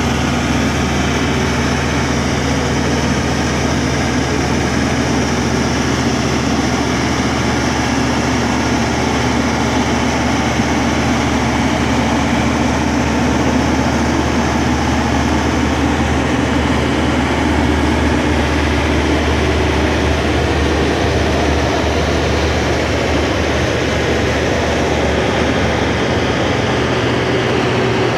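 Katolight 60 kW standby diesel generator set running steadily, its John Deere five-cylinder diesel engine humming at a constant speed inside its sound-suppressing enclosure.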